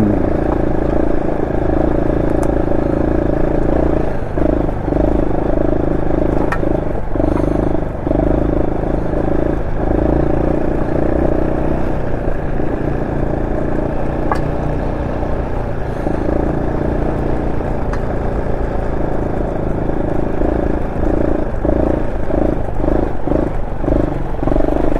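Honda SL230's single-cylinder four-stroke engine with an aftermarket muffler, ridden slowly over rough dirt trail, the throttle easing off and opening again several times, more often near the end. A few sharp clicks and some clatter ride over the engine.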